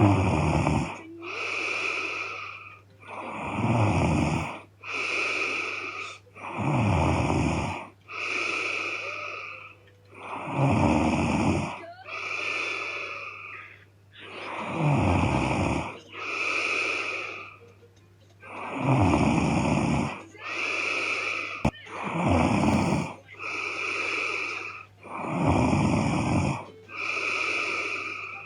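A woman snoring loudly in her sleep: a deep snore on each breath, each followed by a softer breath, in a steady rhythm of about one breath cycle every four seconds.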